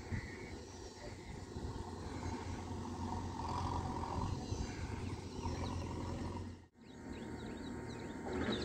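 Outdoor rural ambience: a steady low rumble, with faint short bird chirps after an edit about two-thirds of the way in.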